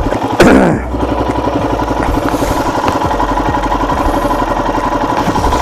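Royal Enfield Himalayan's single-cylinder engine running steadily under way, with an even pulsing beat, plus a brief falling sound about half a second in.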